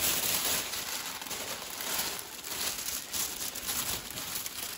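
Tissue paper rustling and crinkling continuously as it is pulled open and unwrapped by hand.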